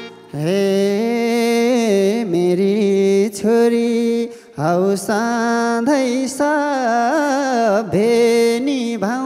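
A man singing a slow Nepali lok dohori (folk) melody into a microphone, holding long notes with wavering ornaments in four or five phrases, with short breaks between them.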